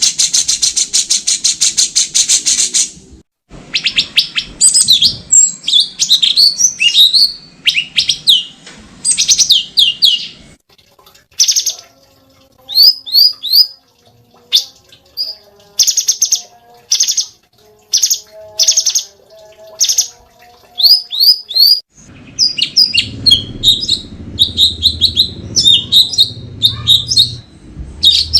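Cucak cungkok singing continuously: a rapid buzzing trill, then strings of sharp, high sweeping whistles and chirps in quick series. Low rumbling noise sits under the song near the end.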